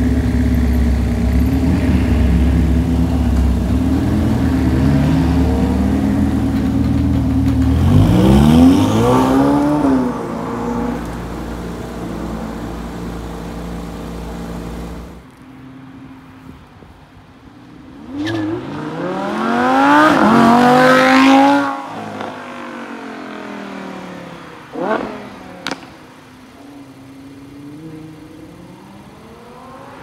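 Supercar engines revving and accelerating hard in separate clips. A steady engine note climbs sharply in pitch about eight seconds in. After an abrupt change at about fifteen seconds, a second, louder acceleration sweeps up through the gears around twenty seconds, followed by a short sharp rev blip a few seconds later.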